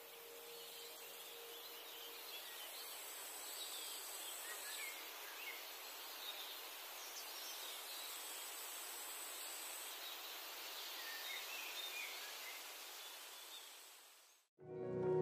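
Faint outdoor nature ambience: a steady, even hiss with small bird chirps scattered through it and a thin, high steady tone. It fades out about a second before the end, and music starts right after.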